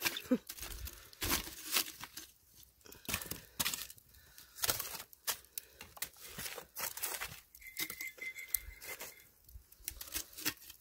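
Metal tongs picking up burning embers and charred wood and setting them on the cast iron lid of a Dutch oven: irregular crunching, scraping and clicking as the coals are piled on.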